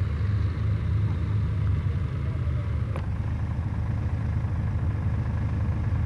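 Tractor engine idling, a steady low rumble, with a single sharp click about halfway through.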